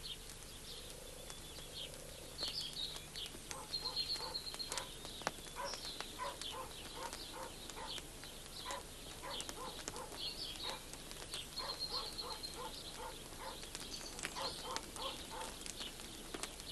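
Outdoor ambience of birdsong: many short, high chirps and trills, over a run of short, evenly spaced lower notes that goes on through most of it.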